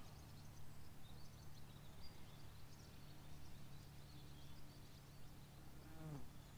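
Quiet riverside ambience with faint, scattered bird chirps over a steady low hum. A brief falling tone sounds near the end.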